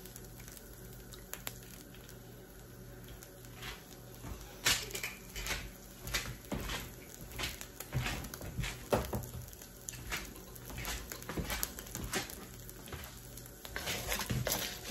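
Olive oil in a hot cast-iron wok, popping and crackling irregularly from about five seconds in. Near the end a wooden spoon stirs and scrapes across the wok, with denser, louder clatter.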